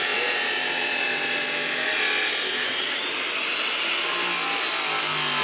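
Steady, harsh, high-pitched hiss of metalworking, dipping briefly about three seconds in.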